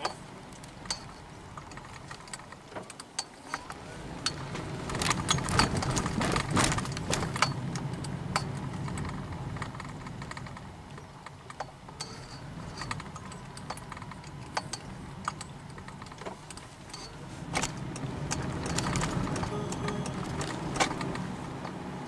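Car cabin noise of a Honda Freed Hybrid driving over two railway level crossings: the road noise swells twice, each time with clattering knocks and rattles as the tyres run over the rails.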